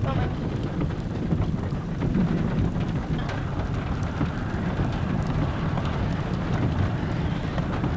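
Steady rain falling, an even hiss with a low rumble underneath.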